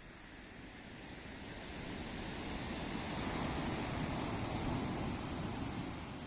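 Sea wave washing in and drawing back: a rushing noise that swells over a couple of seconds, holds, then fades near the end.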